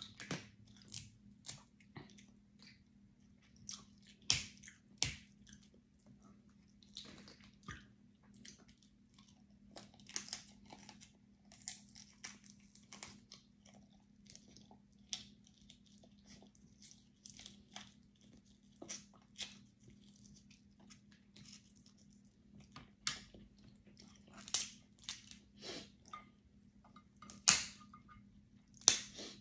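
Snow crab legs being snapped and cracked open by hand, with sharp irregular cracks of shell and close chewing of the crab meat in between. A steady low hum runs underneath.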